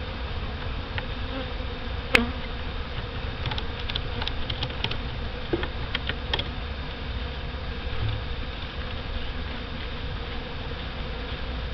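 Honeybees buzzing steadily around a freshly installed package hive, with a sharp click about two seconds in and a few light ticks a few seconds later.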